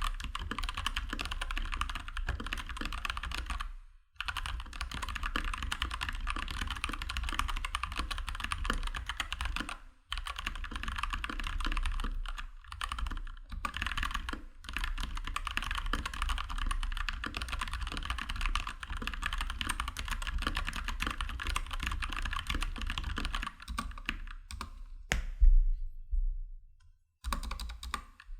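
Fast, continuous typing on a stock Keychron K2 V2 hot-swappable mechanical keyboard with its factory switches and stabilizers, no lube added: a dense run of key clacks with a few short pauses. There is one louder thunk about three-quarters of the way through, followed by a brief quiet gap.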